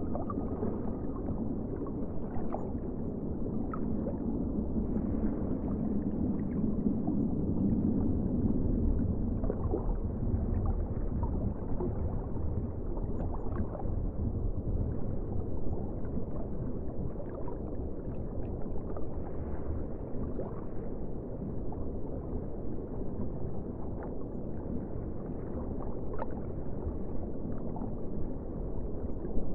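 Underwater ambience: a steady, muffled low rush of water with the high end cut off, dotted with faint bubbling clicks and small gurgles.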